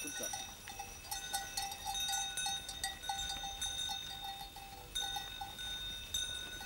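Bells on the collars of a running goat herd clanking and ringing, with a steady run of strikes about two or three a second and lighter jingling over it; the lowest-pitched bell falls silent about five seconds in.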